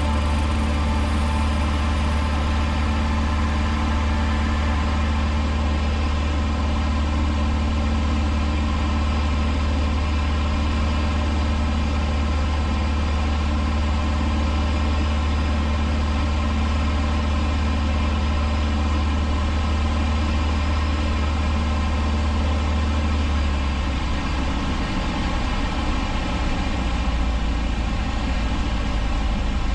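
1977 Cessna 150's four-cylinder Continental O-200 engine and propeller droning steadily in flight, heard from inside the cabin. The deep low part of the drone changes and drops about 24 seconds in.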